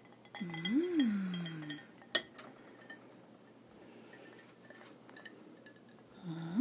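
A short pitched sound that rises then falls, then a sharp glass clink about two seconds in. After that comes a faint trickle as an iced martini mix is poured from a glass pitcher over cotton candy in a martini glass.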